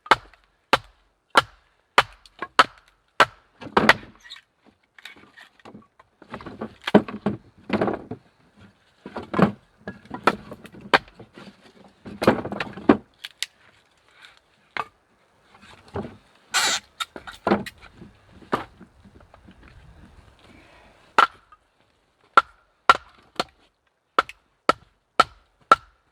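Dry firewood being split by hand: a run of sharp knocking strikes on wood, about two a second at first, broken by stretches of cracking and splintering as pieces come apart, then more single strikes near the end.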